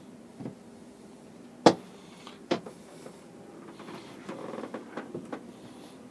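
Galley sink's countertop cover being lifted off and set aside: two sharp knocks about a second apart, then a run of lighter clicks and taps as it is handled.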